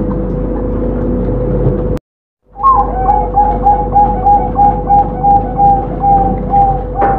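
Zebra dove (perkutut) cooing: after a brief dropout about two seconds in, a quick run of about a dozen short, evenly spaced coo notes, roughly three a second, over a steady hum.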